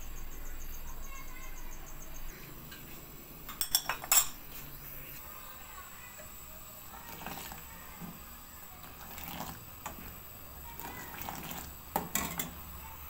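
Metal ladle clinking against a metal saucepan as milky tea is scooped up and poured back in to froth it: several clusters of sharp clinks a few seconds apart, the loudest about four seconds in and again near the end.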